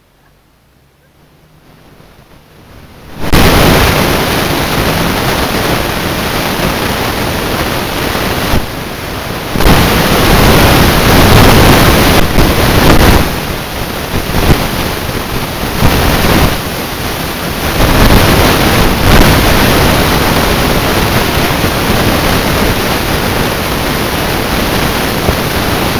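Strong wind buffeting the microphone: a loud, rushing noise that cuts in suddenly about three seconds in and carries on with several brief dips.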